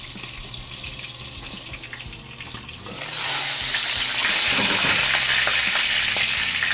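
Dried milkfish frying in boiling oil: a steady sizzle, muffled under a glass lid, that turns much louder and brighter about three seconds in as the lid comes off.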